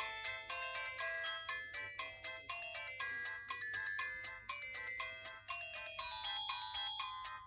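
A preloaded Huawei G6153W mobile phone ringtone playing: a quick melody of struck notes, each fading out, a few a second.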